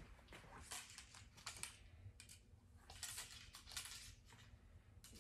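Near silence with faint rustles and light clicks as a compound bow and an arrow are picked up and handled.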